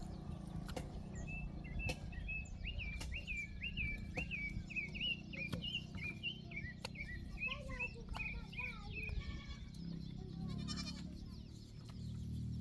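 Goats bleating: a quick run of short, high-pitched calls over about eight seconds, dying away near the end, over a steady low rumble.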